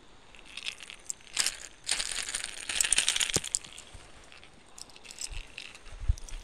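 Dry sticks and dead branches crackling and rustling as someone pushes through them, loudest for about a second and a half around the middle, with scattered small snaps after.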